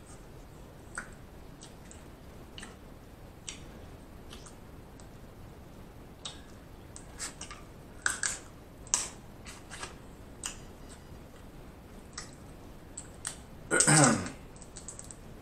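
Close-miked eating sounds of snow crab and shrimp: scattered sharp mouth clicks and smacks while chewing, thickest about eight to nine seconds in. Near the end, a brief vocal sound falling in pitch.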